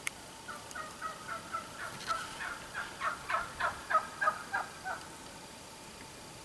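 Wild turkey calling: a run of about twenty short notes, roughly four or five a second, growing louder midway and stopping about five seconds in. A sharp click comes at the very start.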